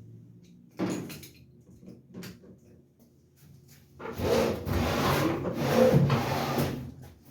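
Washing machine cabinet panel being pushed back into place on its hooks: a knock about a second in, then a few seconds of sliding and scraping of the panel against the cabinet.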